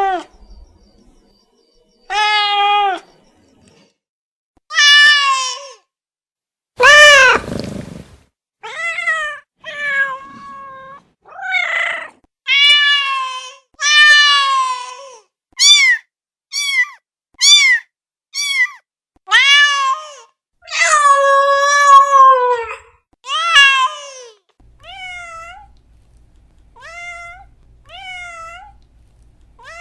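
Domestic cats meowing over and over: about twenty separate meows of differing pitch and length, some long and loud, a run of short quick ones midway, and fainter meows near the end.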